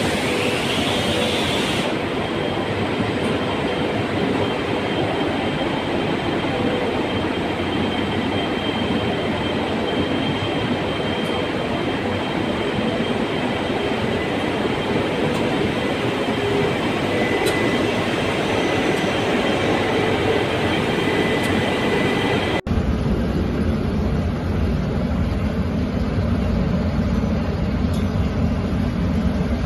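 Steady industrial machinery noise from a powder coating line's pre-treatment cleaning section, with a few faint steady tones riding on it. About three-quarters of the way through it changes abruptly to a deeper, duller steady hum from the automatic powder spray booth.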